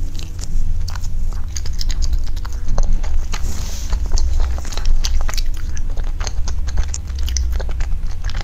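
Close-miked eating of a soft green mochi ice cream: the sticky skin being pulled apart, then bitten and chewed, with many small wet smacks and clicks. A steady low hum runs underneath.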